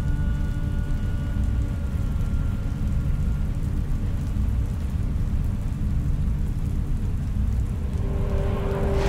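Science-fiction room ambience: a steady deep rumble with faint high electronic tones held over it. Near the end a rushing swell rises and spreads upward.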